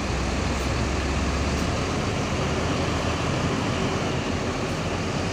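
Diesel bus engine running with road traffic noise around it; the deep engine rumble fades about two seconds in.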